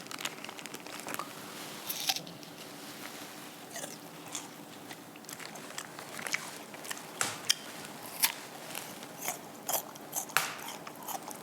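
Close-up eating sounds: scattered crisp crunches of biting and chewing food.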